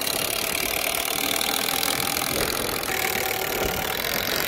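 Cordless impact driver running steadily, driving a fastener down into wooden roof decking with an even, rattling hammering.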